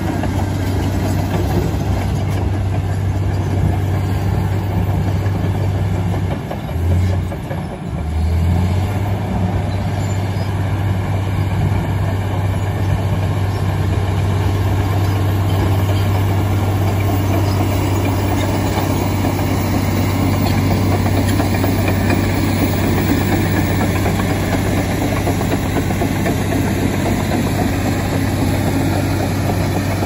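Komatsu D85EX crawler dozer's diesel engine running steadily with a strong low hum while the dozer pushes earth with its blade. Its note briefly dips and changes about seven seconds in, then settles back.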